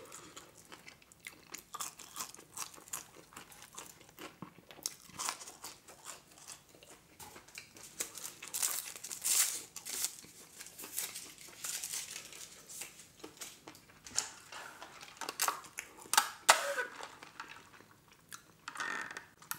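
Close-miked chewing of McDonald's french fries with wet mouth smacking. Around the middle comes the crinkle and tearing of a paper wrapper being pulled off a drinking straw, and near the end there are sips through the straw.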